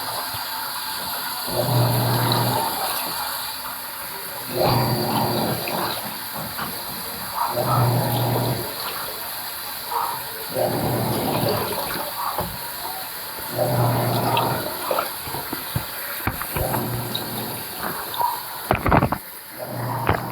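Panasonic washing machine on its blanket cycle, agitating a load in water. Its motor hums in pulses about every three seconds, each with a surge of sloshing water, and there is a sharper splash or knock near the end.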